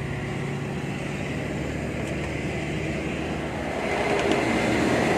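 Steady rumble of a moving vehicle heard from inside it, with a constant low hum, growing louder about four seconds in.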